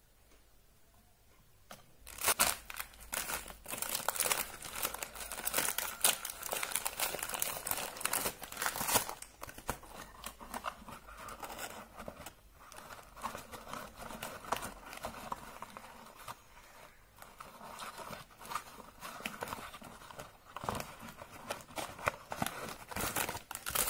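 Foil packets and a cardboard box crinkling and rustling as they are handled, with sharp crackles and a little tearing. It starts about two seconds in and keeps going irregularly.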